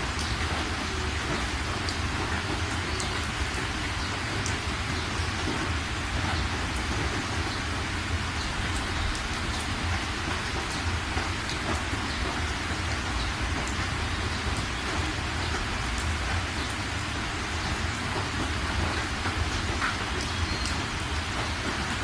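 Steady rain falling, an even hiss with scattered individual drops ticking, over a steady low rumble.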